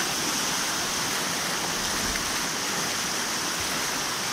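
Steady rushing noise of water, even throughout with no separate splashes.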